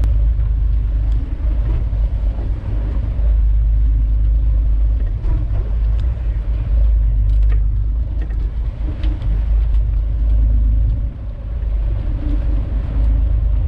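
Fishing boat's engine and hull noise: a steady low rumble with a few faint ticks.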